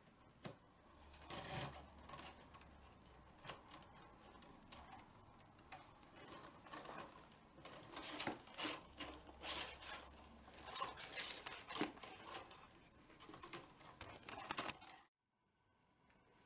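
Tabla badhi (leather lacing strap) rustling and scraping in irregular strokes as it is handled and pulled through the drum's lacing, busiest in the second half. The sound cuts off abruptly about a second and a half before the end.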